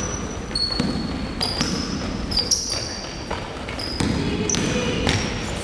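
Basketball bouncing on a hardwood gym floor in irregular dribbles, with sneakers squeaking in short high chirps.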